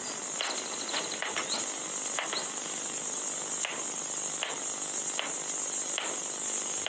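Soft footsteps on a hard floor, about one every three-quarters of a second, over a steady hiss.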